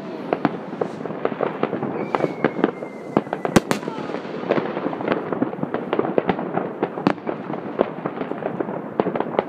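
Many fireworks and firecrackers going off across a city, a dense, unbroken patter of bangs and crackles. A few sharper, louder bangs stand out, the loudest about three and a half seconds in.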